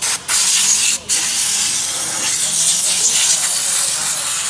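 Compressed-air siphon spray gun blasting gasoline onto an automatic transmission's exposed valve body: a loud hiss of air and spray, in short blasts at first, with a brief break about a second in, then held unbroken.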